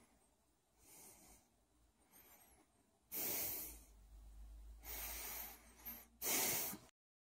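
A person breathing heavily: a couple of faint breaths, then three loud breaths about a second and a half apart. The sound cuts off suddenly near the end.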